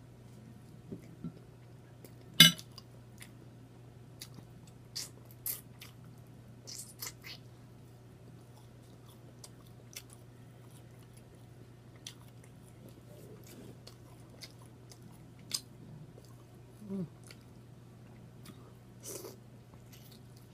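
Close-up eating sounds: chewing and wet lip-smacking, with scattered sharp mouth clicks, the loudest about two and a half seconds in. A short hummed 'mm' of enjoyment near the end.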